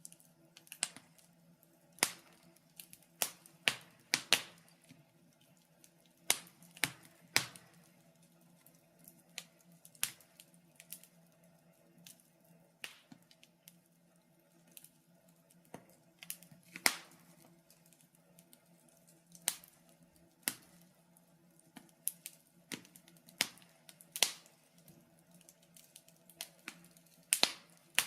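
Wood fire burning in a fireplace, crackling: irregular sharp pops and snaps, roughly one or two a second.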